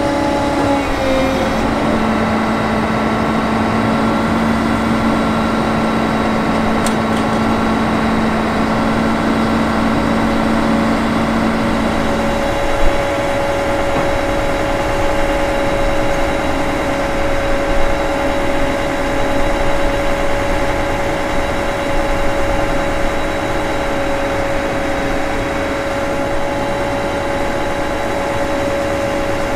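Diesel engine and hydraulics of a MAN Kat bridge-laying truck running steadily, with a constant whine over the engine hum. About twelve seconds in, the whine changes to a higher tone, and a few light knocks follow.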